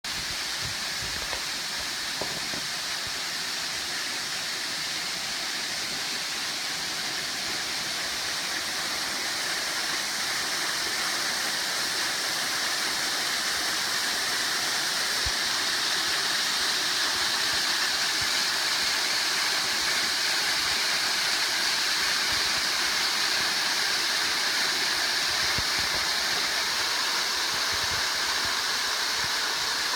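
Waterfall: the first tier of a tiered jungle waterfall, giving a steady rush of falling water that grows a little louder partway through.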